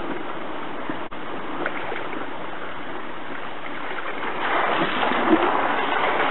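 Water jet from a 28 mm nozzle on a flexible pipe splashing steadily into a plastic tub, part of a test of the nozzle's flow for a micro-hydro turbine. About four and a half seconds in the splashing grows louder as the full tub is tipped out onto the wet ground.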